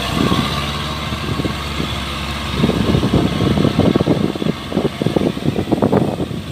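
Yanmar tracked rice combine harvester's engine running steadily at a distance. From about two and a half seconds in, irregular gusts of wind buffet the microphone and rumble over it.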